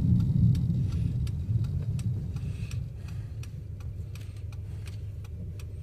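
2005 Chevy Impala's engine running rough and misfiring, heard from inside the car as a low rumble that dies down over the first three seconds and then holds steady. Faint quick ticks sound several times a second throughout.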